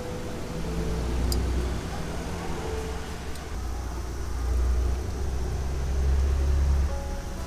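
A low, steady rumble that grows louder in the second half, with a brief high click about a second in.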